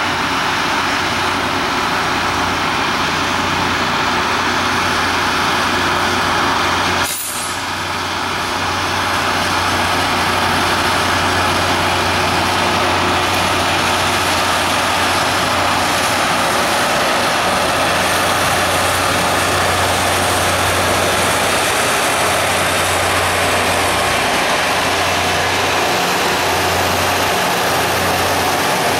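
Loram rail grinder train passing while grinding: a loud, steady harsh hiss of its grinding stones on the rail over the low hum of its diesel engines. There is a brief drop and a click about a quarter of the way through.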